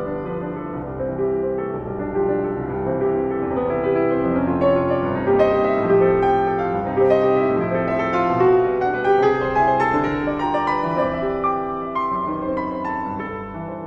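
Solo piano playing a flowing classical passage; it grows louder through the middle and softens near the end.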